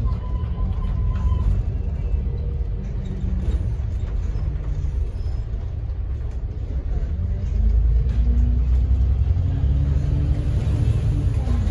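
London double-decker bus running with a steady low rumble, heard from the upper deck. About eight seconds in the engine grows louder and its pitch rises steadily as the bus accelerates, then drops near the end as it shifts up a gear.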